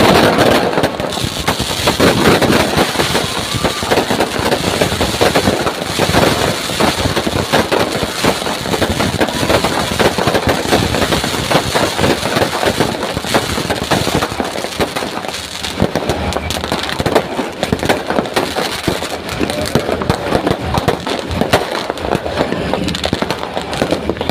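Fireworks going off in a dense, continuous run of rapid cracks and bangs, with people's voices underneath.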